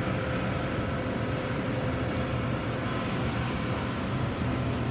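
Steady hum of open refrigerated supermarket display cases, a low drone with a thin steady tone running through it.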